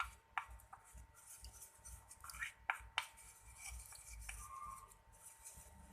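A utensil stirring a thick paste of baby powder and eucalyptus oil in a small container. It scrapes, with scattered sharp clicks where it knocks the container's side.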